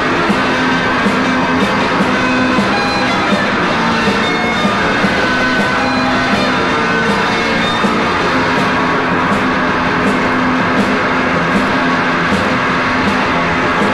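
Rock music: an instrumental stretch of loud electric guitar over a steady drum beat, with no singing.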